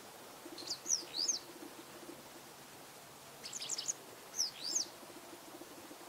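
Japanese wagtail singing: two short phrases of quick, high, sliding notes, the first about half a second in and the second about three and a half seconds in.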